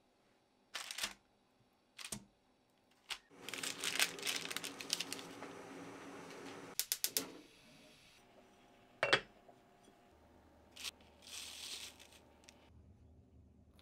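Kitchen handling noises: scattered sharp clicks and knocks, a few seconds of rustling with rapid ticking, and a quick run of four or five clicks partway through.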